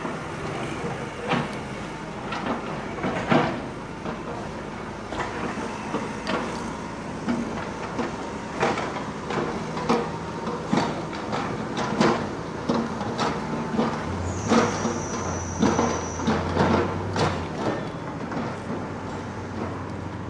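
Town street ambience heard while walking, with a run of short knocks about once or twice a second. Between about 14 and 16 s a thin high whine sounds together with a low hum.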